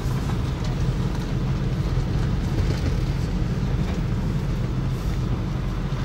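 Steady low rumble of a car's engine and tyres as it drives slowly, heard from inside the cabin.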